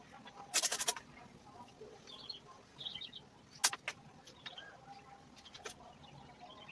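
Small birds chirping in short high notes a couple of seconds in. Louder is a quick rattle of clicks about half a second in, then a few single sharp clicks later.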